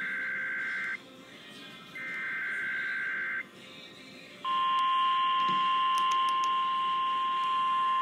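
Emergency Alert System Required Weekly Test played over a radio stream: two squawking EAS/SAME header data bursts, each a second or more long with a short gap between them. About four seconds in, a single steady, piercing alert tone of about 1050 Hz, the NOAA Weather Radio warning alarm tone, begins and holds.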